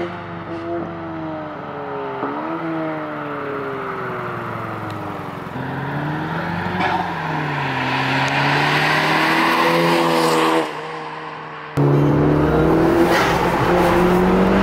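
Honda Civic Si's L15B7 1.5-litre turbocharged four-cylinder with its muffler deleted, exhaust heard as the car drives past on the road. The engine note falls, jumps up and falls again, then climbs with a dip as it shifts. About twelve seconds in it gives way to a steadier engine drone from inside the cabin.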